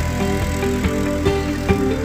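Background music: a melody of held notes over a steady beat, with a vehicle's engine running low underneath.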